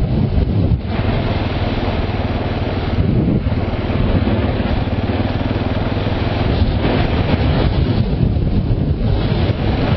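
KTM motorcycle engine running steadily while being ridden, under an even rush of wind and road noise.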